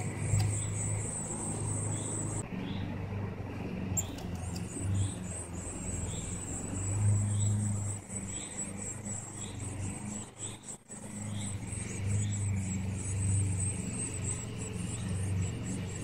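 Garden ambience with a steady low rumble of distant road traffic and a thin high-pitched trill. Through the middle a bird repeats a short chirp about every two-thirds of a second. The trill drops out briefly near the start.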